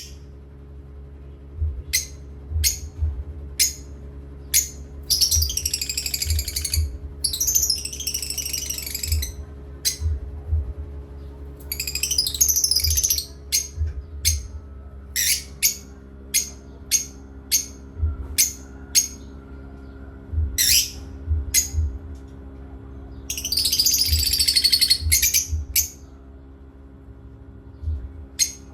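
Pet parrots calling: many short, sharp chirps throughout, broken three times by longer harsh screeching calls lasting a second or more, over a steady low hum.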